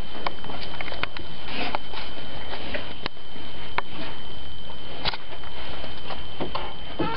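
Close handling and rustling noise as a doll is moved by hand: a steady hiss with scattered light clicks and taps, over a faint steady high whine.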